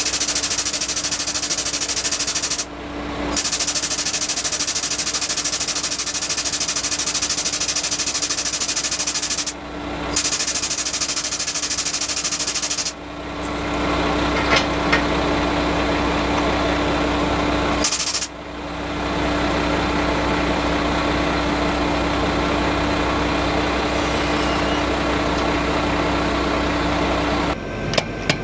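A loud machine running steadily with a hiss and a hum, dropping off briefly four times and stopping near the end.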